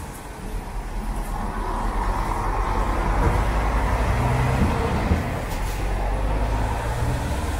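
Road traffic moving over the open level crossing: a lorry's engine pulling away and a car passing. The low engine rumble swells over the first few seconds and then holds steady.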